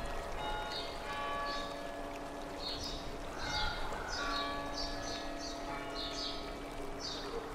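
Church bells ringing in overlapping tones, with repeated high bird chirps and a steady rushing hiss like running water underneath.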